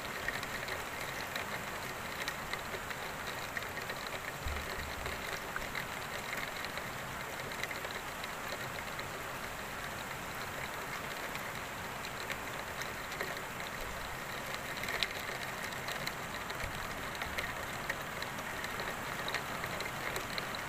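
Heavy rain falling steadily: an even hiss with scattered sharp ticks of single drops.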